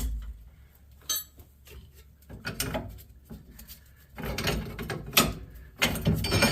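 Irregular metallic clicks, clanks and scrapes of hand tools working a truck's rear leaf-spring U-bolt nut loose, with one sharp ringing click about a second in and busier clattering in the second half.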